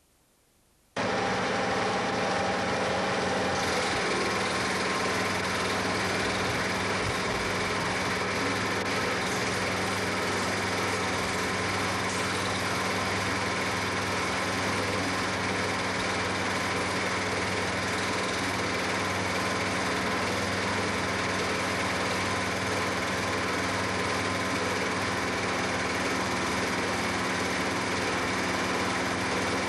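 A motor-driven machine running steadily with a constant hum and whir that starts abruptly about a second in and does not change: the sound of a film projector running the home movie.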